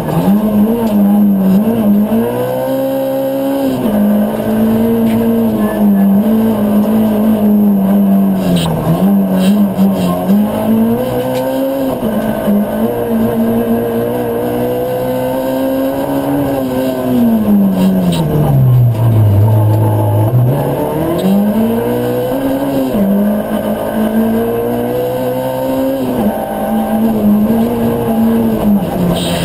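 Ford Fiesta R2 rally car's engine heard from inside the cabin at full stage pace, its pitch climbing and dropping again and again through the gears. About two thirds of the way in the revs fall low for a slow corner, then climb hard again.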